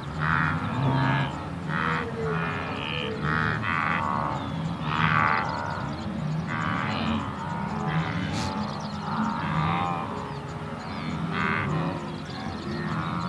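Calm background music with animal calls repeating irregularly over it.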